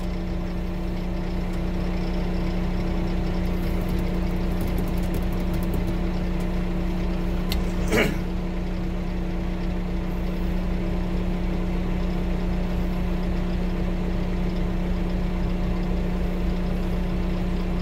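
A 650 dozer's diesel engine idling steadily, heard from inside the cab, with a brief sharp sound about eight seconds in.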